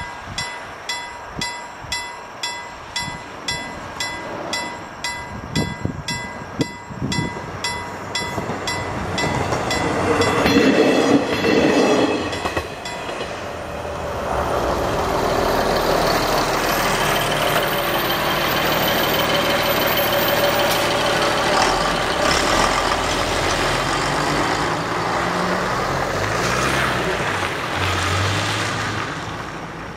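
A level-crossing warning bell rings about twice a second with a steady ringing tone, then stops about nine seconds in. A louder rushing noise follows for a couple of seconds. Then comes the steady noise of road vehicles, a van and a bus, starting off and driving over the crossing as the barriers open, with an engine rising in pitch near the end.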